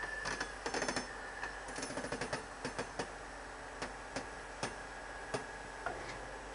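Diesel shunting locomotive working up to tank wagons, heard as a run of irregular metallic clicks and clanks from the rolling stock. The clicks are dense in the first three seconds, then thin out to single knocks about every half second to a second, over a faint steady high whine.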